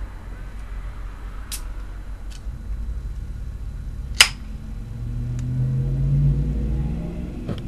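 Aluminium Coors Banquet beer can's tab cracked open with one sharp snap about four seconds in. Over the last few seconds a low engine drone swells and rises in pitch, then fades.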